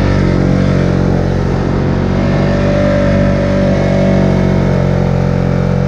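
Polaris four-wheeler (ATV) engine running loud and steady at held revs, driving through snow.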